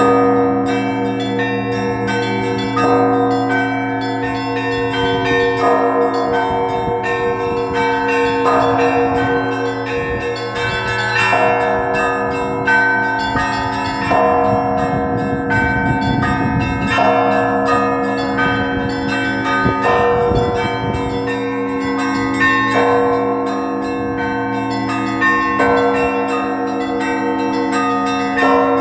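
Russian Orthodox church bells rung by one bell ringer: the deep bells hum on throughout while the smaller bells chime rapidly over them. A fresh, louder cluster of strokes comes about every three seconds, in a steady rhythm.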